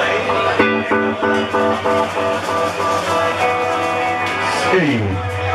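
Live band playing: a guitar strikes short repeated chords, about three a second, then lets notes ring, and near the end a note slides down in pitch into a low held bass note.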